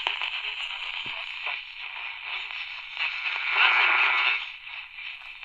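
Magnavox 89 pocket radio's small speaker hissing with AM static while being tuned between stations around 850 kHz. The noise swells for about a second near the middle.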